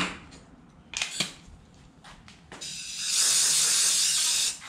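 Compressed-air blow gun giving a steady hiss for about two seconds in the second half, then cutting off, blowing air over superglue soaked into a braided hose end to dry it faster. Before it come a few sharp clicks and knocks of tools being handled.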